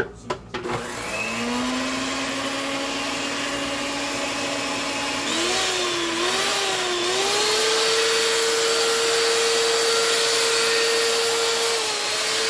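Handheld electric mixer whisking thick gravy in a pot, loosening it. A few clicks, then the motor starts with a steady hum. About five seconds in its pitch wavers and steps up to a higher steady whine.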